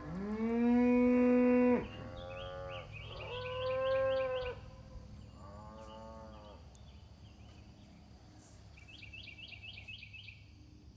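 Cattle mooing: a long, loud moo to start, then three shorter, fainter moos over the next five seconds. A bird's quick repeated chirps sound between the moos and again near the end.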